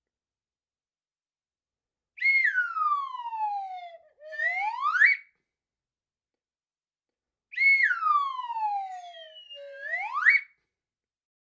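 Slide whistle comedy effect: a long falling glide followed straight away by a quicker rising one, played twice.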